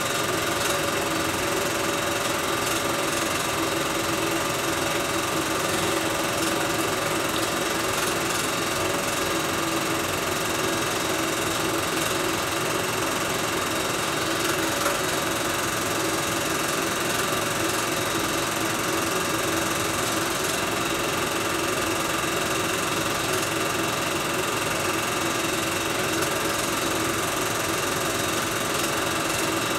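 Film projector running: a steady mechanical whir with hiss and faint rapid clatter, unchanging throughout.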